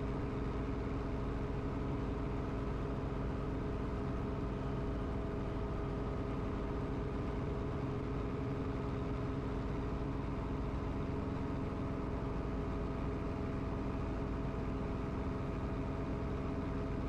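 Light training helicopter's engine and rotor running steadily during the departure climb, heard inside the cabin as a constant hum with several steady tones.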